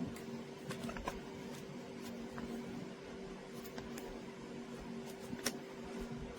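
Scattered small clicks and taps from handling a product's packaging and accessories, over a steady low hum.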